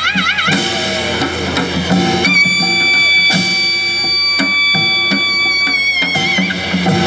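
Live Korean traditional (gugak) ensemble music: regular percussion strikes under a long held high melody note, its pitch wavering widely near the start and then held steady for several seconds.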